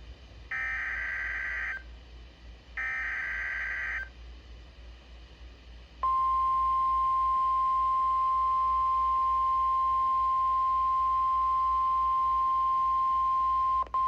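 NOAA Weather Radio Emergency Alert System signal for a Flash Flood Warning: two short buzzy bursts of SAME digital header data, then about six seconds in the steady 1050 Hz warning alarm tone starts and holds, with a brief dropout near the end.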